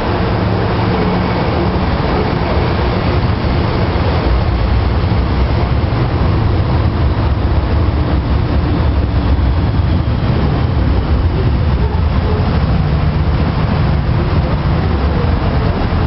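MTR M-Train electric multiple unit moving through an underground station behind full-height platform screen doors, a steady loud rumble of wheels and motors.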